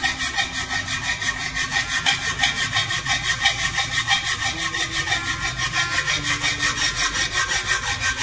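A hacksaw cutting through the tube of a steel Moulton bicycle frame in steady, evenly paced back-and-forth strokes. The metal is hard, so the cut goes slowly.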